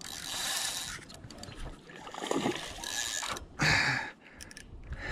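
Spinning reel being cranked against a hooked fish, its gears whirring as line is reeled in.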